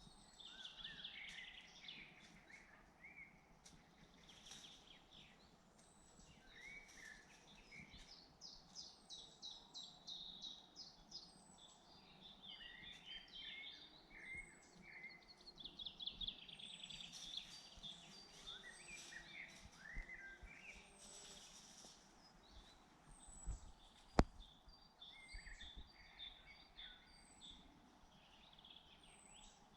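Several songbirds singing at once: overlapping trills and whistled phrases, with one bird repeating a short, high, down-slurred note about every second and a half in the latter part. A single sharp click about 24 seconds in.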